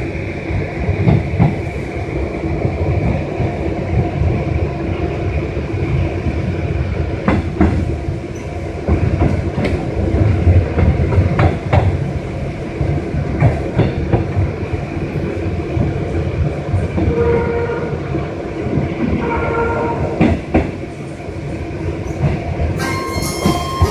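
Metro train running, heard from inside the car: a steady rumble and a high whine, with wheels clicking over rail joints and switches. Near the end an onboard chime starts, ahead of the arrival announcement.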